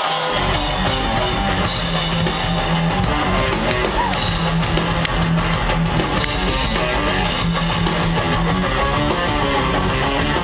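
Live rock band playing, with electric guitars over a repeating bass line and drums.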